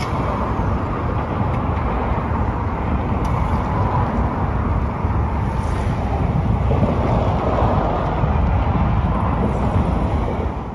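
Steady roar of traffic on the freeway overpass above, a dense rumble that holds at the same level throughout.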